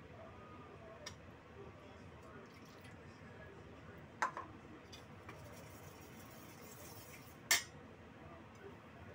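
Ceramic soup spoon clinking against a stainless steel bowl while stirring a soy and sesame sauce: three short clinks, about one, four and seven and a half seconds in, the last two the loudest.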